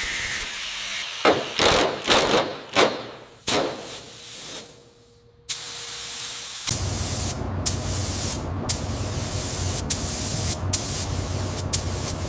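Several short hissing strokes, like a paint spray gun, in the first few seconds. After a brief quiet, a steady low mechanical rumble with sharp clicks and knocks takes over for the rest.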